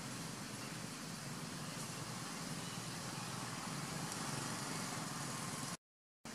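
Steady outdoor background noise: a low rumble under an even hiss, with no distinct events. It cuts to dead silence for about half a second near the end.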